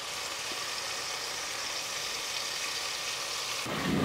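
Ghee sizzling steadily in a pot with whole spices, crushed shallots, garlic, ginger and herbs frying in it. Near the end a louder stirring sound comes in.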